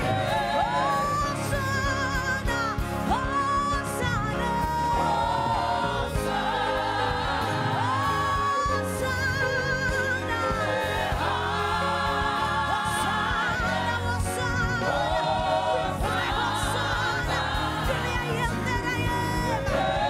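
Gospel worship song sung by several voices with wide vibrato over band accompaniment with a steady bass line.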